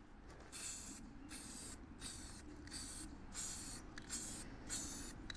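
Aerosol spray paint can spraying a steel plate in short passes: about eight half-second hisses with brief gaps between them.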